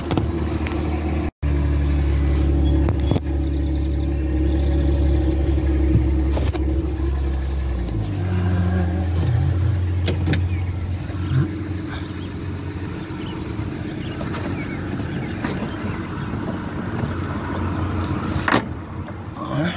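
A car engine running with a steady low hum that changes and eases off about eight seconds in. Several sharp clicks come over it, plastic trim clips being pried loose from the hatch panel.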